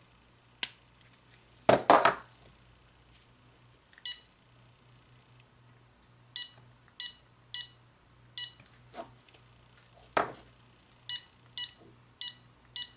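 GE 900 MHz cordless phone (model 26938GE1-D) beeping with each button press as its keypad is tested after cleaning of the button contacts: about nine short beeps, mostly in the second half. There are also a few sharp clicks and knocks, the loudest about two seconds in and about ten seconds in.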